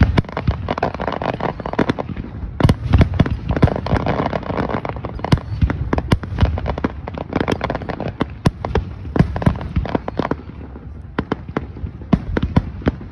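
Aerial fireworks shells bursting in a rapid barrage, many sharp bangs in quick succession that thin out about ten seconds in.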